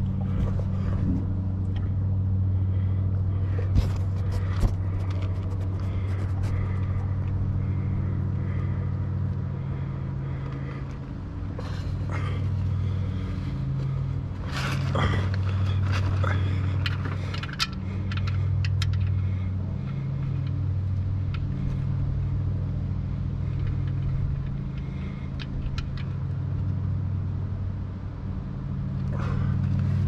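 A steady low engine hum that swells and fades at times, with scattered light clicks and scrapes of parts being handled.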